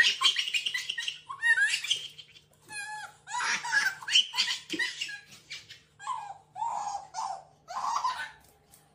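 Baby squealing and laughing in a run of short, high-pitched bursts with gaps between them.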